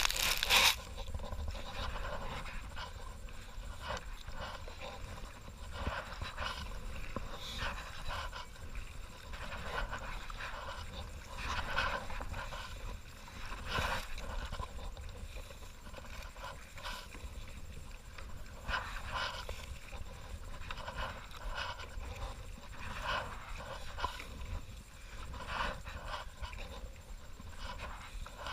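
A brief loud scrape against the boat-mounted camera at the start, then a kayaker breathing hard, in irregular breaths every second or two.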